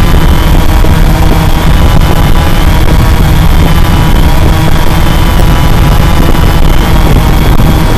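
Cheerson CX-20 quadcopter's brushless motors and propellers whining steadily close to its onboard camera as it hovers, the pitch wavering slightly.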